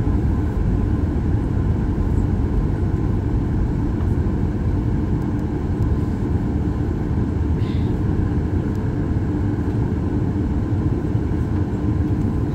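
Steady low rumble of a Boeing 737 MAX 8's CFM LEAP-1B engines and airframe, heard inside the cabin at a window seat over the wing while the airliner moves slowly on the ground.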